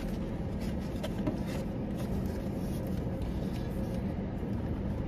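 Steady low rumble of a car heard from inside its cabin, with a few faint light clicks about a second in.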